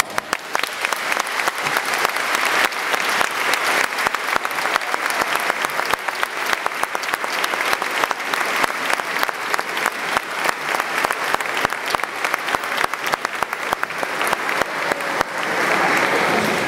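Audience applauding, a dense, steady round of clapping that swells briefly near the end.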